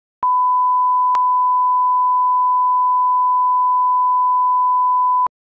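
Electronic line-up test tone, the steady single-pitch reference tone that goes with colour bars, held for about five seconds and cutting off abruptly, with a short click about a second in.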